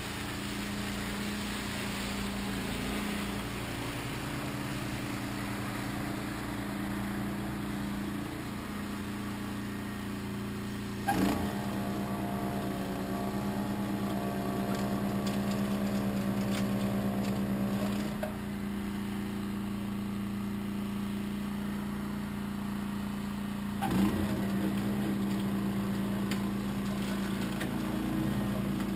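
A motor or engine running with a steady hum. There is a knock about a third of the way in, after which a higher whine joins for several seconds, and another knock later on.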